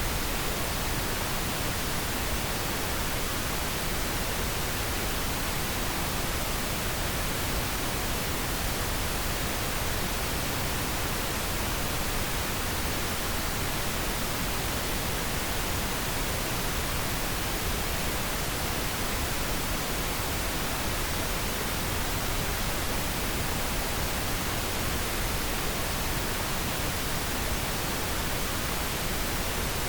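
Pink noise: a steady, even hiss, full in the low end, with no change in level or pattern.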